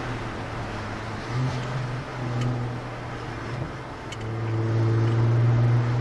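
Exhaust of a 2017 Jaguar F-Pace with a 3.0-litre supercharged petrol V6, fitted with a Velocity AP Touring exhaust and ECU tune. It holds a steady low note, swells briefly twice, then grows louder from about four seconds in.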